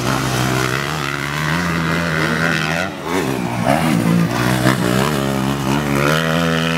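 Motocross dirt bike engines at racing throttle. The note holds steady for about three seconds, then rises and falls as the throttle is rolled on and off over the jumps.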